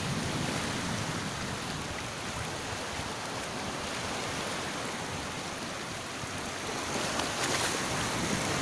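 Small sea waves washing and foaming over shoreline rocks: a steady rushing wash that swells a little near the end.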